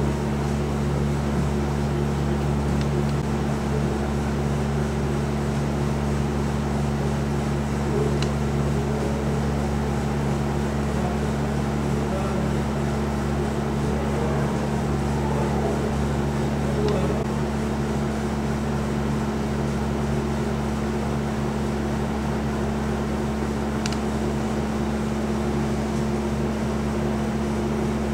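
A steady low hum made of several constant low tones over an even background noise, unchanging throughout.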